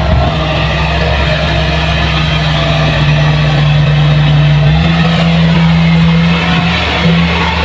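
Kubota rice combine harvester's diesel engine running steadily at working speed, its pitch stepping up slightly about five seconds in.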